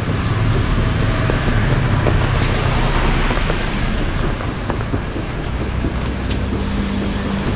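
Street traffic: vehicle engines humming low under a steady rushing noise.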